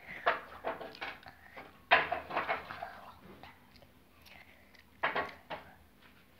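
Open-mouthed chewing of a large wad of chewing gum: irregular wet smacking sounds, the loudest about two seconds in and again about five seconds in.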